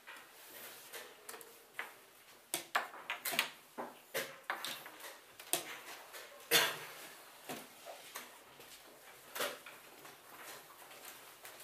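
Wooden chess pieces set down on the board and a chess clock's buttons pressed: a series of short sharp clicks and knocks, the loudest about six and a half seconds in.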